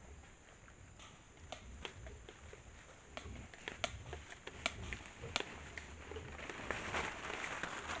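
A group of peccaries foraging in dry leaf litter: scattered sharp clicks and snaps, with rustling that grows louder after about six seconds.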